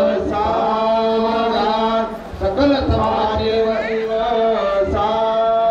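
A man chanting Hindu wedding mantras in a sung recitation, over a steady held drone note.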